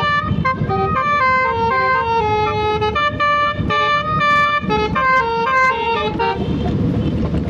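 A basuri telolet horn, a set of multi-trumpet musical air horns on a vehicle, playing a quick tune of stepped notes over a low engine rumble. The tune fades out about six seconds in, leaving mostly the rumble.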